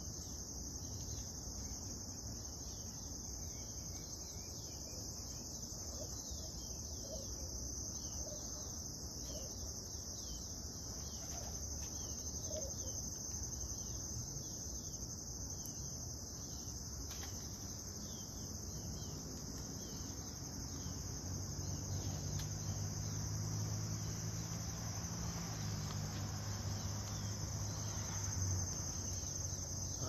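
Steady, high-pitched chorus of insects chirring without a break. A low steady hum joins in about two-thirds of the way through and drops away shortly before the end.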